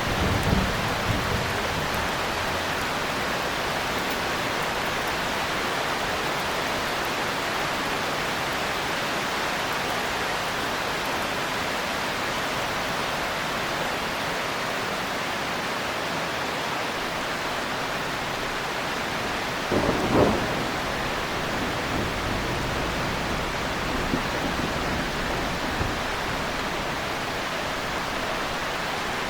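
Steady heavy rain with thunder: a low rumble just after the start and a short, louder thunder crack about two-thirds of the way through.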